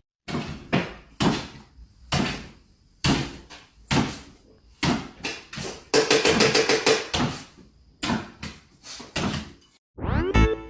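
A run of irregular bangs and thumps, roughly one or two a second, with a quick flurry of rapid knocks around the middle, like something banging against a door.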